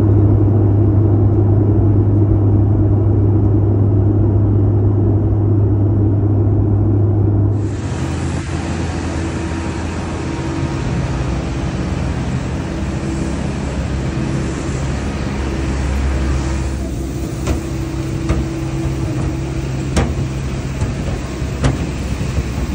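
Steady jet airliner cabin drone, heard from inside a cabin in flight, loud and low. About a third of the way in it cuts to outdoor airport apron noise: a steady engine-like hum and hiss from aircraft and ground equipment, with a few short knocks near the end.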